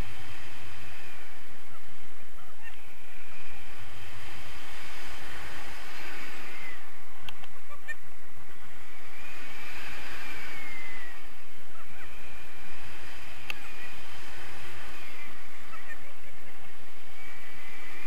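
Steady wind rumbling on the action camera's microphone in flight under a tandem paraglider, with a faint high wavering tone rising and falling above it.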